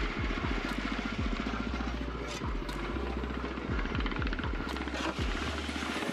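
Portable cement mixer running, its motor driving the drum round with a fast, even chugging pulse, with low thumps from the mortar tumbling inside.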